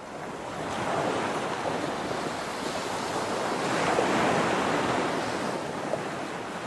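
Steady rushing sound of water, fading in over the first second and swelling gently around the middle.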